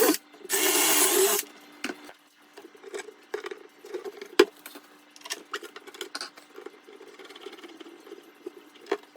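Power drill boring a hole in a cabinet door for a knob, a short burst of drilling about half a second in. It is followed by quieter clicks and handling noise over a faint steady hum.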